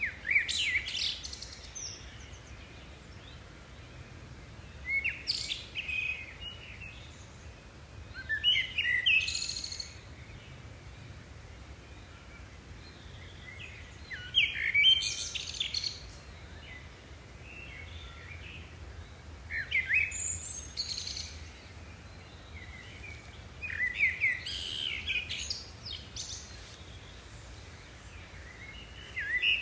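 A songbird singing in short bursts of rapid chirps and trills, each phrase one to two seconds long and repeated about every four to six seconds.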